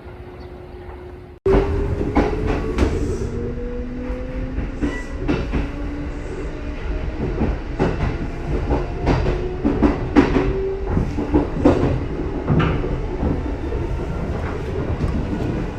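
Kintetsu electric multiple unit train running through the station: wheels clacking irregularly over rail joints and points, with a motor whine that rises in pitch over a few seconds as it gathers speed. It begins abruptly about a second and a half in, after a quieter steady hum.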